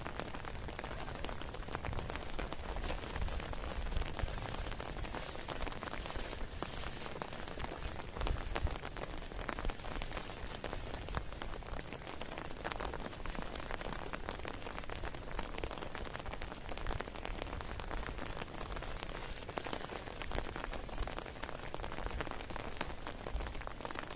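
Heavy rain falling steadily, a continuous hiss thick with the ticks of individual drops.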